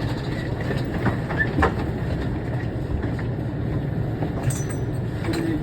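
Inside the car of the CDG airport shuttle train (CDGVAL) running between stations: a steady low rumble with a few short clicks and knocks about a second in.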